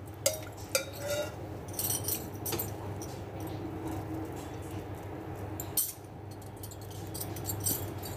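A steel ladle clinking lightly against the metal pot of a pressure cooker as a curry is stirred, in scattered irregular taps over a faint steady low hum.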